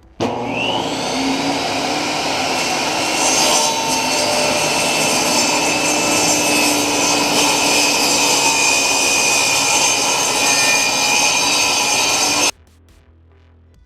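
Power saw cutting through a wood panel, the motor coming up to speed at the start, then running steadily under load for about twelve seconds before stopping abruptly.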